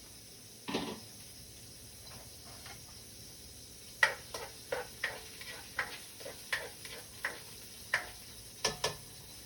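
A knife chopping onion on a cutting board: one knock near the start, then about a dozen sharp, evenly spaced chops, two to three a second, from about four seconds in.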